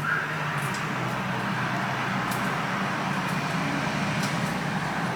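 Hot air rework station blowing steadily while a replacement MOSFET is soldered onto a laptop logic board: a rushing hiss over a low hum, with a few faint ticks.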